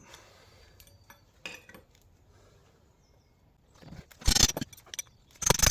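Metal clinking and clanking as tools and bolts are handled on a Land Rover Defender axle: a short cluster of sharp clinks about four seconds in and another near the end.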